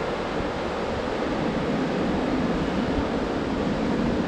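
Ocean surf breaking on the shore in a steady wash, with wind buffeting the microphone in a low rumble.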